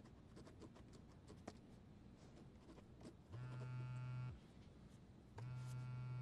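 A low electric buzz sounding in one-second pulses about two seconds apart, twice, after a few faint clicks.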